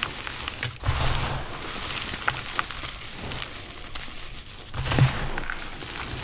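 Hands crushing and crumbling chunks of reformed gym chalk: a continuous gritty crunching with small crackles as the pieces break. There are dull thumps about a second in and again near five seconds.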